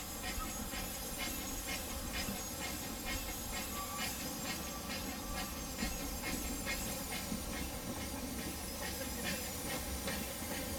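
Narrow-gauge steam locomotive working a train slowly over curved track. It gives a steady beat of exhaust chuffs, about two to three a second, with hissing steam and a high wheel squeal on the curve.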